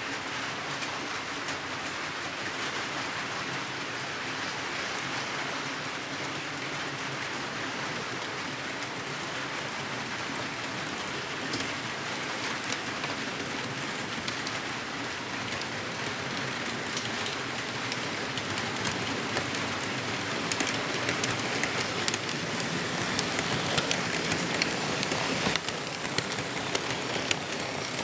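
ScaleTrains Rivet Counter GE AC4400CW model locomotive running by on layout track: a steady hissing rolling noise with scattered light clicks. It grows louder and clickier over the last few seconds as the model comes closer.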